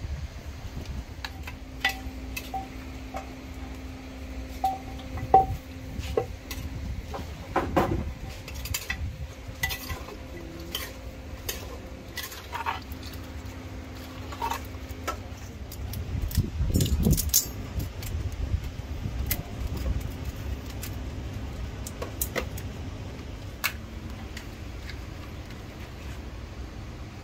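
Kitchen clatter: metal utensils clinking and knocking against pots, pans and dishes during cooking, with a steady low hum underneath and a busier stretch of clatter past the middle.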